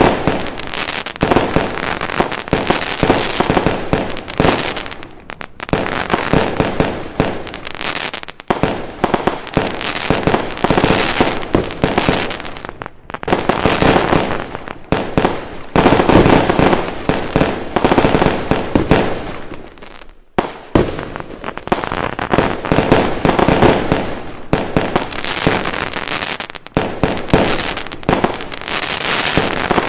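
A fireworks barrage: dense, rapid bangs and crackling going on without a break, easing briefly now and then, with the deepest lull about twenty seconds in.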